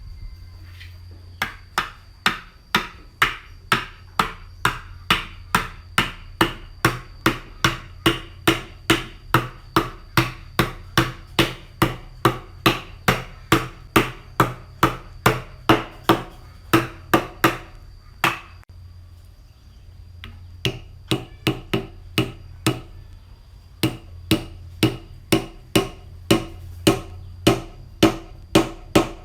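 Hand hammer blows in woodworking, struck in a steady, even rhythm of about two to three a second, each with a short ring. The strikes pause briefly about 18 seconds in, then resume.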